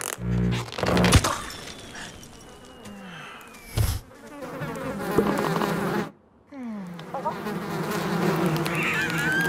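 A string of cartoon sound effects over a continuous buzzing: a sharp knock about a second in and another near four seconds, a sudden drop-out just after six seconds, then a falling glide, with wavering high whistling tones near the end.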